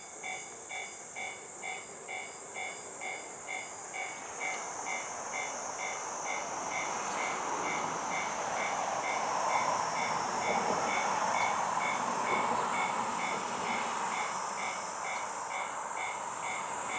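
Japanese railroad crossing alarm ringing in a steady electronic beat of about two strokes a second while a train passes, its running noise swelling to loudest in the middle and fading near the end.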